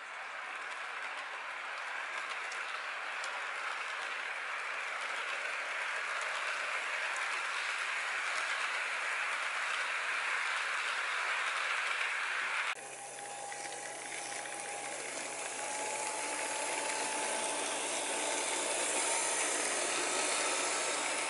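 HO-scale model freight cars rolling on sectional plastic-roadbed track: a steady rattling rush of small metal wheels on rail that grows louder as the cars come closer. It breaks off abruptly about halfway through, and the rattle goes on with a faint steady whine as a green diesel locomotive model passes close.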